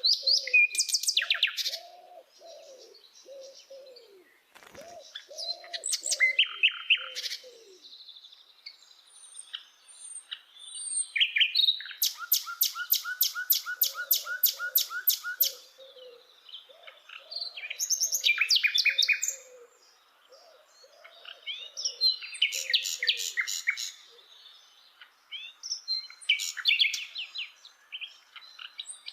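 Common nightingale (sikatan londo) singing: loud phrases of rapid repeated notes and trills, each lasting a second or a few seconds, with short pauses between them.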